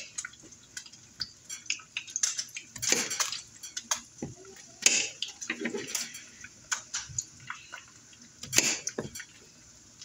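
Kitchen knife cutting slices of green squash on a bamboo cutting board: a series of irregular cuts and taps of the blade through the squash onto the wood.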